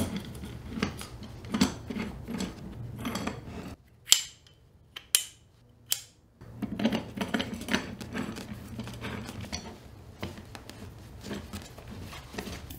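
Steel tool parts clinking and scraping as a toothed cutter is handled and fitted onto a head tube reamer and facer handle on its threaded rod. There is a run of small clinks, a quieter stretch in the middle broken by three sharp clicks, then more clinking.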